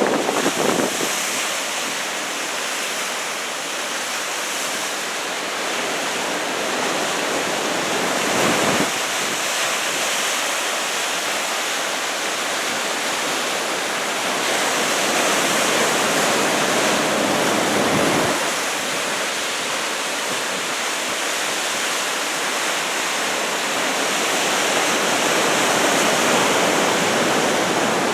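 Surf from a typhoon swell of about two metres, waves breaking in a steady rush of noise, with two brief low rumbles about eight and eighteen seconds in.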